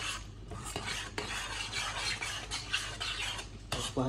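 Chopped onion, peppers and garlic being stirred in a stainless steel saucepan, in uneven scraping strokes with short pauses between them.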